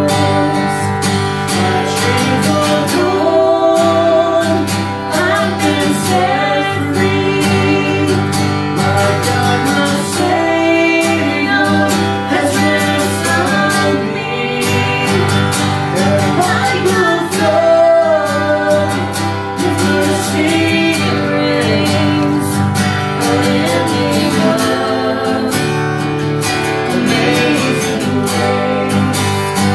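A country-style song with a singing voice over acoustic guitar.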